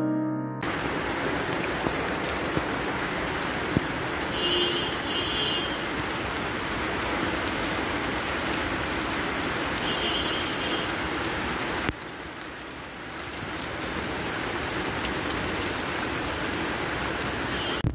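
Steady rain falling on potted plants and wet concrete, with a few short high chirps about five and ten seconds in.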